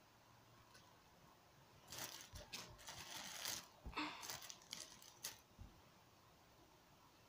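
Hands handling squishy toys and a shoelace: a few seconds of rustling and light clicking, starting about two seconds in and stopping about five and a half seconds in.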